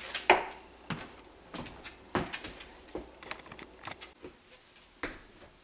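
Several light knocks and clicks, scattered and irregular, of things being handled at a kitchen counter.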